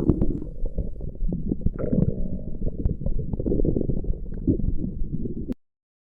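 A person's stomach growling: continuous low rumbling and gurgling with small pops that cuts off suddenly about five and a half seconds in.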